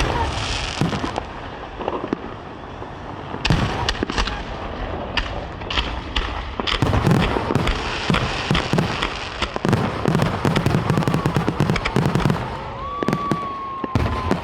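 Aerial fireworks bursting again and again, sharp bangs mixed with dense rapid crackling, and a whistling tone near the end.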